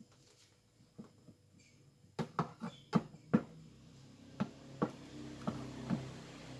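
Light knocks and clicks of a drinking glass of juice being handled against an electric juicer and the counter, a quick run of them about two seconds in and a few more spaced taps later.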